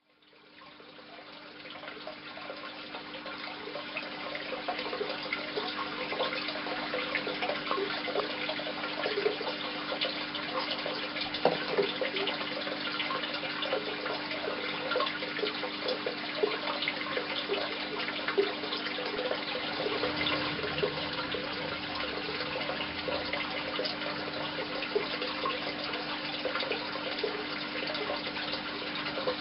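Steady running, trickling water with many small splashes, over a constant low hum. It fades in over the first few seconds.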